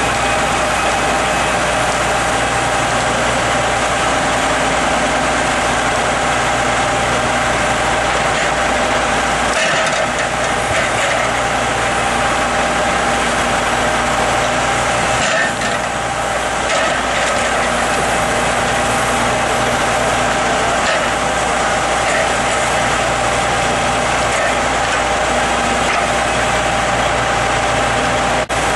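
Log truck running steadily: continuous engine and mechanical noise with a few steady tones, dipping briefly about ten and fifteen seconds in.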